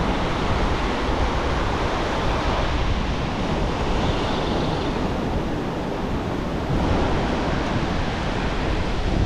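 Ocean surf breaking and washing up the sand in a steady wash, with wind rumbling on the microphone.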